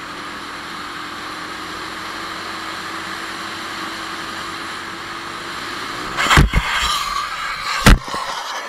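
Motorcycle riding at speed: steady wind rush with a faint engine hum, then about six seconds in a crash, several hard impacts and scraping as the bike goes down on the asphalt, with the loudest bang near the end.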